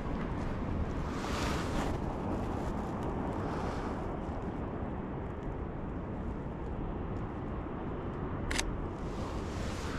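Steady city street noise with a low traffic rumble, and near the end a single sharp shutter click from a Sony a7III mirrorless camera taking a photo.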